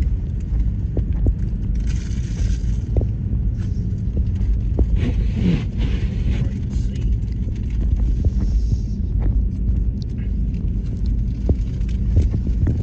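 Steady low rumble of a Chevrolet truck idling, heard inside the cab, with paper wrapper crinkling around a burrito twice and scattered small clicks.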